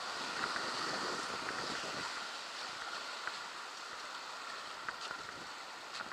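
Whitewater of a river rapid rushing past an inflatable raft: a steady wash of churning water, with a few faint short knocks.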